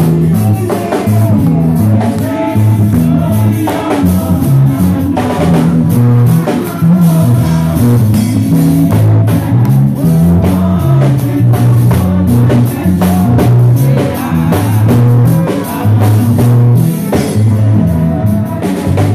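Live church praise band playing: keyboard with a strong stepping bass line, drum kit and conga drums, with a man singing into a microphone over the PA.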